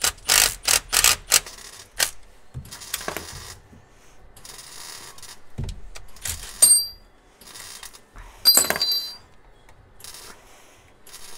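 Metal tools and a puller clicking and clinking against a crankshaft pulley that is seized on the crank: a quick run of sharp knocks in the first two seconds, then two ringing metal clinks, about six and eight and a half seconds in.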